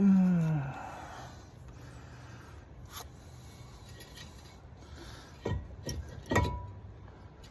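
Hand tools working on a car's front disc brake assembly: a few sharp metallic clanks and scrapes, the last one ringing briefly. A short falling grunt-like voice sound comes right at the start.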